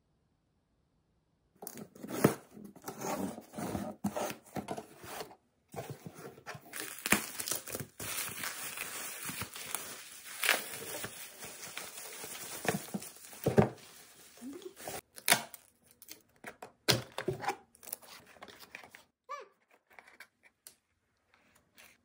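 Bubble wrap crinkling and tearing as a bubble-wrapped bottle is unpacked from a cardboard box, with rustles and knocks from the cardboard. It starts after a moment of near silence and thins to a few scattered rustles near the end.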